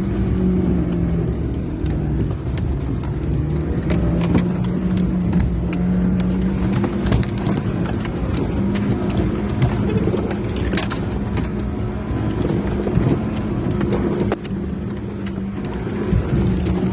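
Off-road vehicle engine running with its pitch shifting up and down as the revs change, with many short knocks and rattles from the vehicle driving over rough ground.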